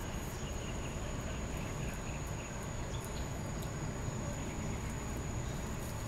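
Outdoor ambience: a steady, thin high-pitched insect drone over a low rumbling background, with a few faint clicks.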